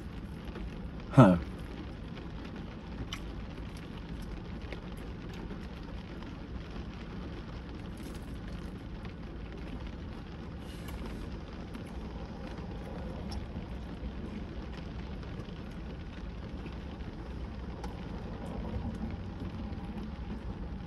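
A short voiced 'mm' from a person eating comes about a second in. After it there is a steady low background hum inside a car, with faint scattered ticks.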